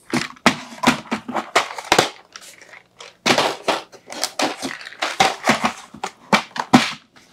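Plastic packaging being handled: a dense run of irregular crinkles, crackles and sharp clicks.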